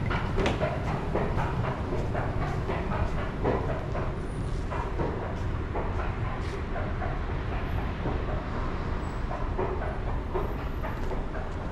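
Steady low rumble of city ambience while walking, with footsteps and scattered light clicks and knocks, most frequent in the first couple of seconds.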